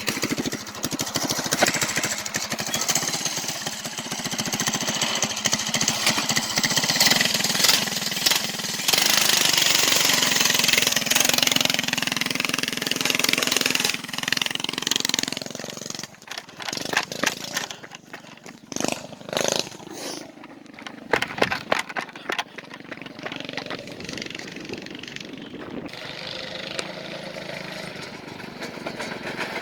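Small straight-piped Yerf Dog go-kart engine running under throttle as the kart is driven, loudest in the first half. Partway through comes a run of sharp knocks, and then the engine sound is quieter.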